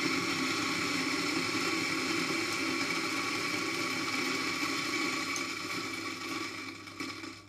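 Eureka Mignon Specialita espresso grinder's 55 mm flat burrs running steadily, a fairly quiet grinder at about 65 dB on a sound meter, then stopping near the end.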